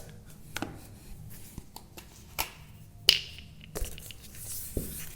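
Scattered light clicks and taps of small objects being handled by hand, about seven in all, the sharpest about three seconds in.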